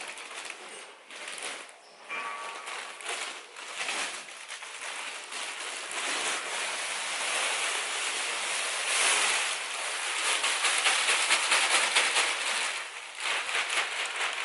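Fresh stable bedding being shaken out and spread in a pony's stall: a continuous dry rustling and scattering that grows denser and louder toward the middle.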